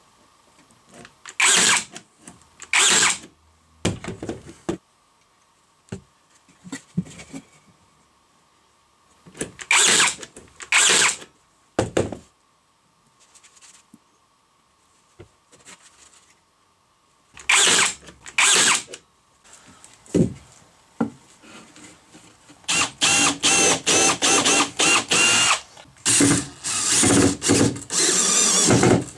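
Cordless drill-driver driving screws into pine boards: loud short bursts in pairs, then near the end a longer run of quick on-off pulses with a motor whine as a screw is driven home.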